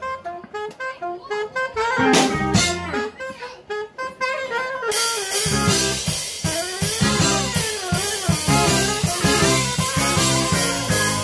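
Live jazz band: the saxophone section plays a short passage on its own, and about five seconds in the drums and cymbals come back in with the full band under the saxophones.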